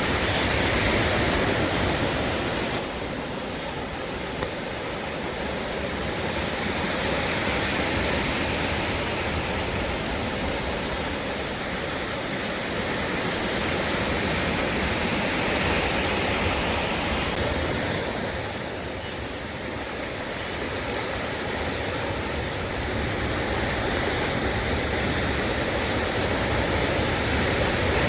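Sea waves washing in a steady, continuous rush of surf that rises and falls gently over several seconds.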